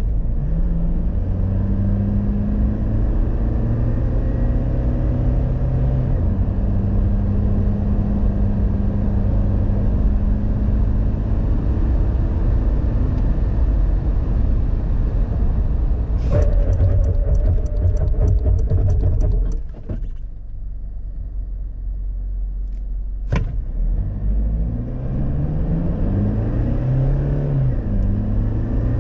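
Inside-cabin sound of a 2.8-litre turbo-diesel four-cylinder under hard acceleration through a six-speed automatic: the engine note rises in pitch and steps down at each gear change. About two-thirds of the way through, a fast run of ticks lasts a few seconds, then the engine goes quieter as the throttle is lifted. A single sharp click follows, and near the end the revs climb again under full throttle.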